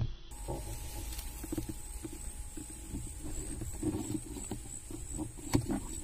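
Low rumbling handling noise from a rifle-mounted scope camera, with a faint steady high whine, then one sharp air rifle shot about five and a half seconds in.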